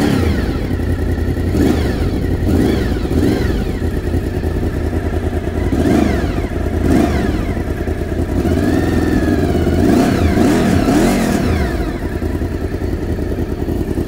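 Honda VFR750's V4 engine running through a Delkevic aftermarket silencer just after starting. The throttle is blipped several times, the revs rising and falling between steady running.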